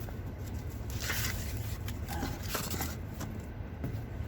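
Handling noises from unpacking a lawn mower: brief scrapes and rustles, the clearest about a second in, with scattered small clicks over a steady low rumble.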